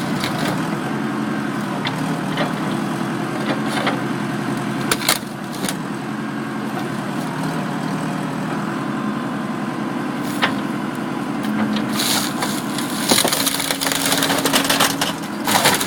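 Excavator's diesel engine running steadily while the machine crushes a car body: a few sharp cracks about five and ten seconds in, then a long spell of crunching and cracking near the end.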